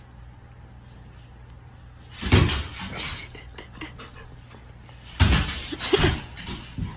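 Thumps and scuffling as two dogs paw at each other on a hardwood floor: one thump about two seconds in, then a longer burst of thumps about five seconds in.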